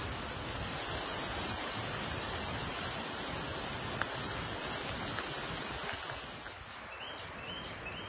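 Steady rushing outdoor noise, even and unbroken, easing slightly after about six seconds. Near the end come three short high chirps.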